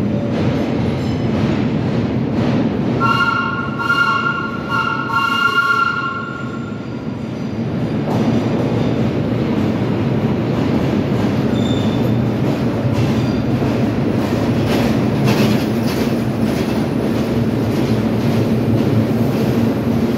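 Vintage R1/R9 subway cars approaching and running along the platform: a steady rumble of wheels and motors. About three seconds in, a shrill high tone sounds in three short stretches over the train noise.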